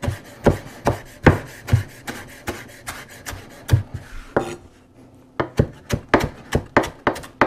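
Chef's knife chopping fresh dill on a wooden cutting board: a quick, irregular run of sharp knocks of the blade striking the board, several a second, with a brief pause a little past the middle.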